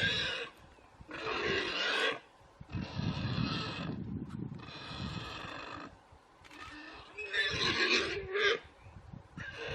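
An animal crying out repeatedly: a series of loud, drawn-out calls, each about a second long, with short pauses between them.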